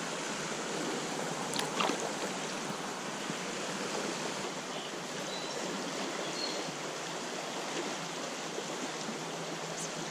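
Small stream's fast run rushing steadily over its rocks. A brief clatter of clicks comes about two seconds in.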